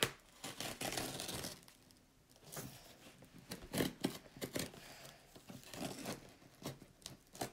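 Packing tape being pulled and torn off a cardboard shipping box, in several irregular ripping bursts with the cardboard rustling, after a sharp click at the start.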